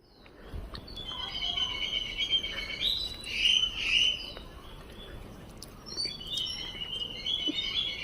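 Birds chirping and twittering in a dense, fast chorus, loudest from about one to four seconds in and again near the end.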